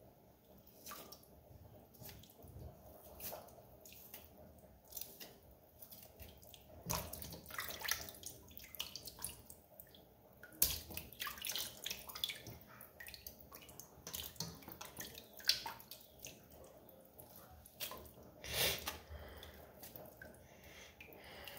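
Water dripping and splashing into a stainless steel bowl as raw turkey necks are lifted out of their soaking water and handled, in irregular small splashes and drips.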